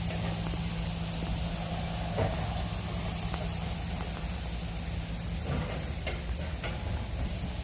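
A steady low motor hum with several short clicks scattered over it.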